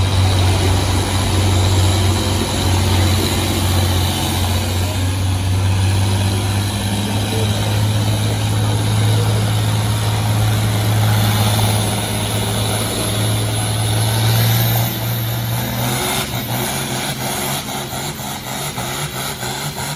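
Farm tractor's engine running hard at a steady pitch as it pulls a weight-transfer sled down the track. About 15 seconds in it drops off as the pull ends, and it runs on more quietly with a rapid knocking.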